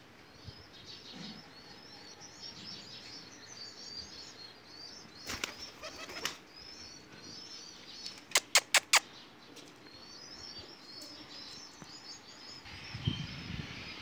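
Pigeon wings flapping, with four sharp, loud claps in quick succession a little after eight seconds and a smaller flurry of claps a few seconds before, over steady high chirping of small birds.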